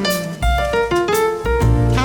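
Instrumental jazz background music, with piano notes over a low bass line.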